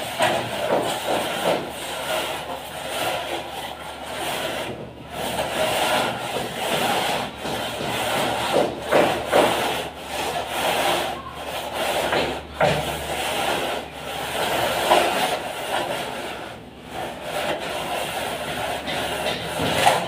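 A long straightedge scraping across fresh cement plaster on a wall, in repeated uneven scraping strokes as the plaster is levelled.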